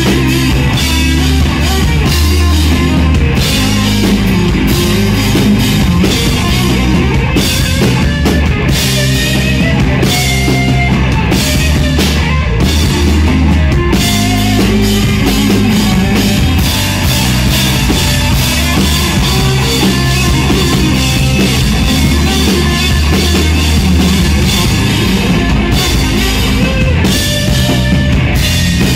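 Rock band playing live and loud: electric guitars over a drum kit, with no speech.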